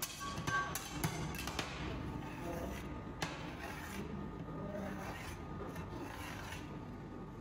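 A metal spatula and knife scraping and tapping on a stainless-steel ice-cream cold plate, cutting a frozen ice-cream sheet into strips, with several sharp clicks in the first second or so.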